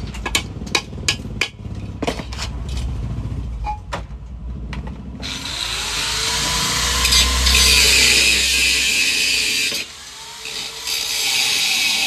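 A few sharp metal knocks, then an angle grinder grinding metal and throwing sparks, its pitch rising and falling as it bites. It stops briefly near the end and starts again.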